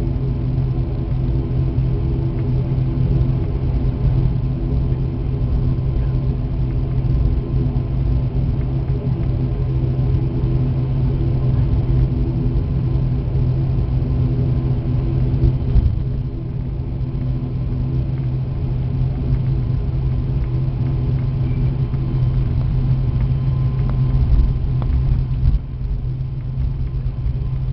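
Turboprop airliner's engine and propeller running at a steady low-power drone while the aircraft taxis before take-off, heard inside the cabin. The loudness dips slightly about sixteen seconds in and again near the end.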